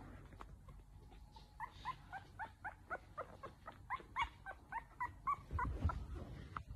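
Yorkshire terrier puppy whimpering: a quick run of short high squeaks, about four a second, lasting several seconds. A low rumble comes in near the end.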